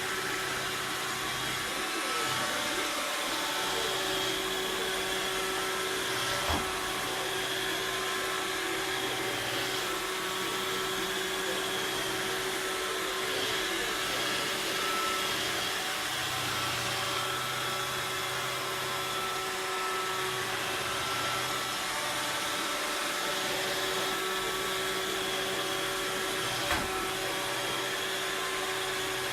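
Robot vacuum cleaner running steadily, its motor humming with a constant whine. Two brief sharp knocks come about 6 and 27 seconds in.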